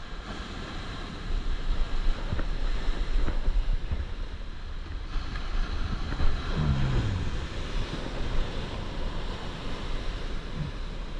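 Ocean surf washing onto a beach, with wind buffeting the microphone. A short low sound that falls in pitch comes about two-thirds of the way through.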